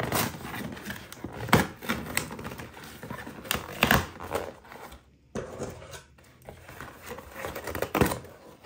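A cardboard shipping box being torn open by hand, with packing tape ripping and flaps being pulled back in irregular sharp crackles and tears. Near the end, scissors snip at the tape.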